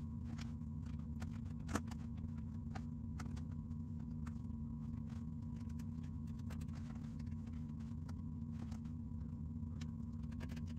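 Faint, scattered clicks and light scrapes of a small putty knife working wet patching plaster around a recessed ceiling light hole, with one sharper click about two seconds in, over a steady low background hum.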